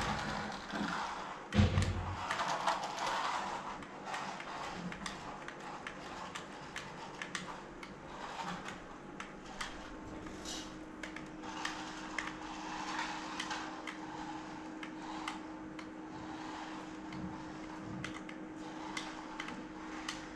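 A loud thump about two seconds in, then scattered light clicks and knocks over faint room noise; a low steady hum comes in about halfway through.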